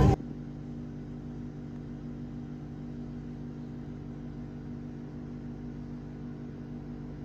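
Steady low hum of a running machine, holding one unchanging pitch with several overtones.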